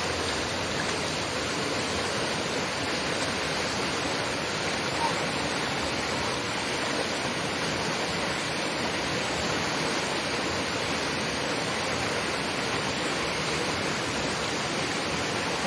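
Fast mountain river rushing steadily, a continuous even roar of flowing water with a strong current.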